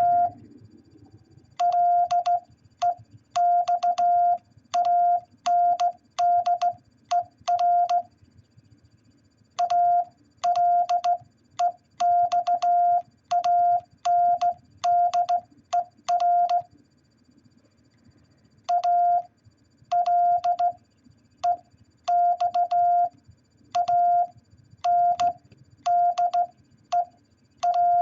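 Morse code beeps spelling out the name Alexander: a single steady tone keyed on and off in dots and dashes, in three runs with short pauses between them. There is a slight click as each beep starts and stops.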